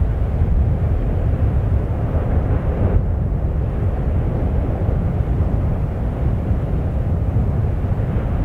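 Steady deep rumble of an erupting volcano, the lava-filled crater of Fagradalsfjall churning and spilling over.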